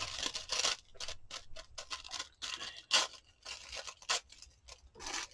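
Paper scraps rustling and crinkling in quick, irregular bursts as they are handled and sorted through.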